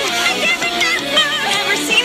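A song playing: full music with a wavering, warbling melody line over steady accompaniment.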